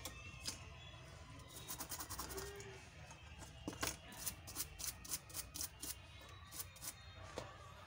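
A thin metal tool tapping and scraping on a phone's circuit board and flex cable: sharp little clicks, a quick cluster a couple of seconds in, then a run of about three clicks a second through the middle and latter part.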